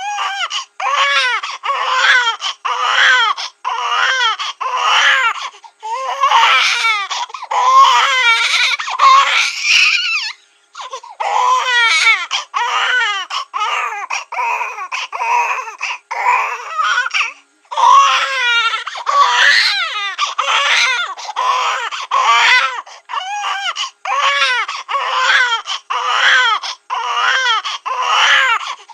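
Cartoon-style baby crying sound effect: repeated wailing cries that bend up and down in pitch, broken by short catches of breath, with brief pauses about ten and seventeen seconds in.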